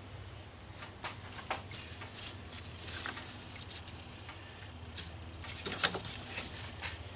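Irregular light metallic clicks, taps and short scrapes of a wrench and loose metal parts being handled while 10 mm nuts are taken off the fuel filter mount, with the sharpest clicks about five seconds in and a cluster about a second later, over a steady low hum.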